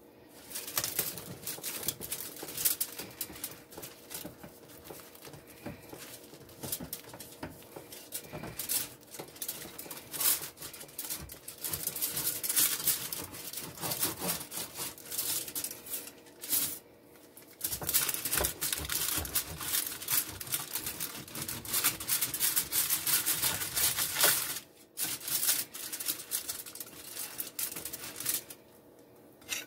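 Aluminium foil crinkling and crackling under a pizza as it is sliced with a plastic cutter, a dense run of irregular scrapes and clicks with a few short pauses.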